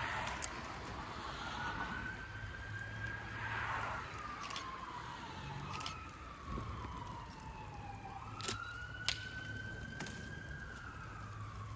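Emergency vehicle siren in a slow wail, rising and falling about twice, over sharp pops and crackles from a car burning fully involved, the loudest pop about nine seconds in. A steady low hum runs underneath.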